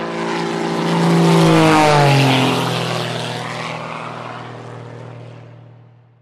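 Airplane flying past: the engine grows louder, drops in pitch as it passes about two seconds in, then fades away.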